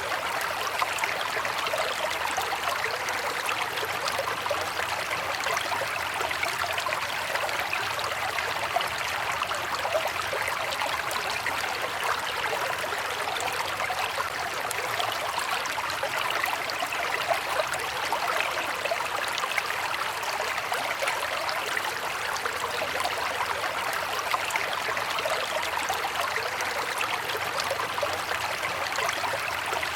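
River water flowing steadily over stones, a continuous rushing babble with fine splashing detail.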